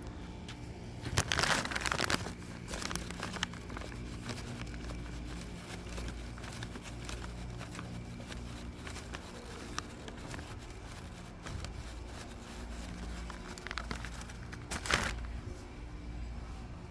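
Crinkling of plastic or packaging in two louder bursts, about a second in and again near the end, with smaller crackles between, over a steady low hum.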